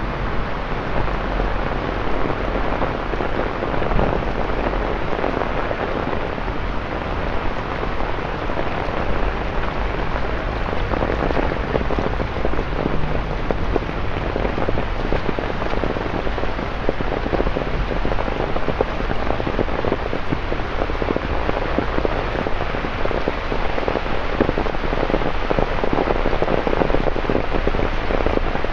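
Steady heavy rain falling on pavement and street, a dense patter of drops splashing on the wet ground.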